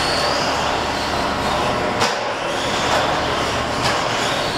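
1/10-scale electric RC racing trucks running on an indoor clay track: motors whining up and down in pitch over the noise of tyres on dirt. A sharp knock, such as a truck landing or hitting a berm, comes about two seconds in.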